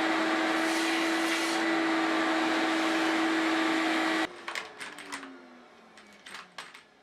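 An electric motor-driven tool runs steadily with a constant hum. About four seconds in it is switched off, and the hum falls in pitch as the motor winds down, with a few light clicks and knocks.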